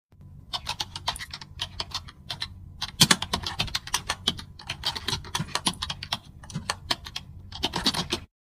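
Typing on a computer keyboard: irregular runs of quick keystrokes over a steady low hum, with one louder key strike about three seconds in.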